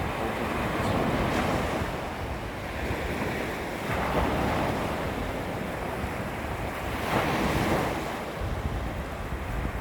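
Small waves lapping against a beach shoreline. Each wash swells up and falls away, about every three seconds, over a steady low rumble.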